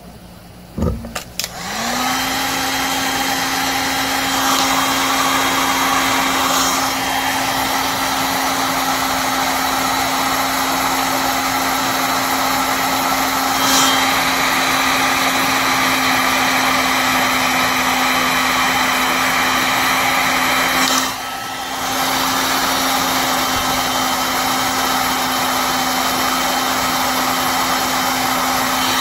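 Heat gun switched on about a second and a half in, its fan motor spinning up to a steady whine over a loud rush of blown air. It dips briefly about two-thirds of the way through, then carries on.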